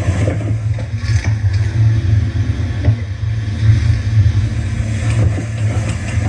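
Jet ski running at speed: a steady, loud engine drone mixed with wind buffeting the microphone.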